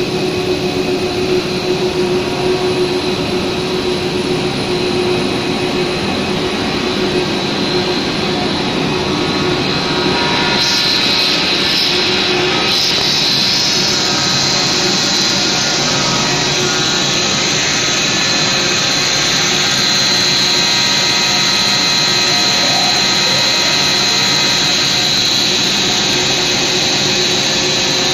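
PVC wood-plastic board extrusion line running: a loud, steady machine drone with a steady high whine over it. About ten seconds in a brighter hiss joins and stays.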